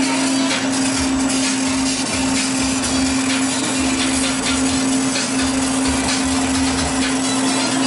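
Laser engraver running while it engraves wooden bottle-opener handles: a steady mechanical hum with a constant low drone and hiss.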